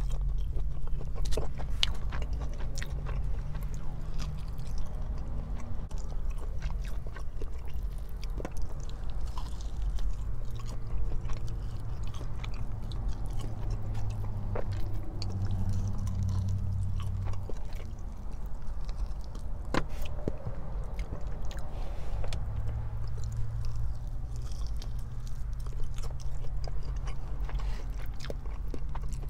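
Close-miked chewing and biting of food, steady throughout, with scattered sharp clicks of the mouth and food, one louder click about twenty seconds in.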